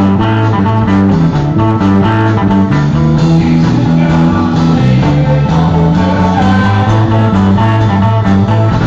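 Live band playing loud, guitar-led blues-rock music with a moving bass line, heard through a phone's microphone.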